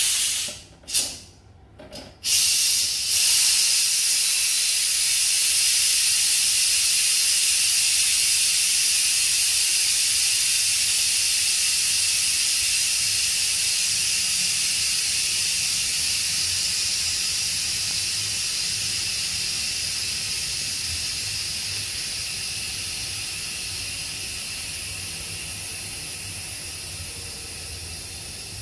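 Noxxa electric pressure cooker venting steam through its pressure-release valve to let the pressure out after cooking. Two short spurts come first, then a steady loud hiss from about two seconds in that slowly fades as the pressure drops.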